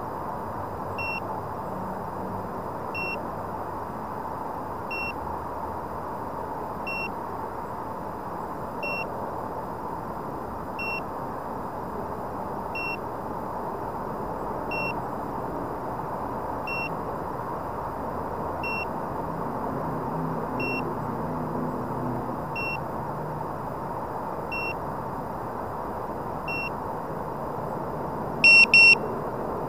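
Short electronic beeps, one about every two seconds, over a steady background hiss. Two much louder beeps come in quick succession near the end.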